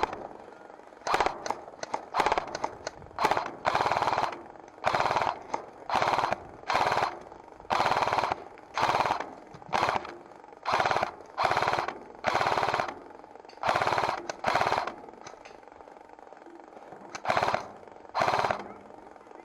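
G&P M249 SAW airsoft electric gun firing short full-auto bursts, about one every half second to second, laying down covering fire. Near the end it pauses for about two seconds, then fires two more bursts.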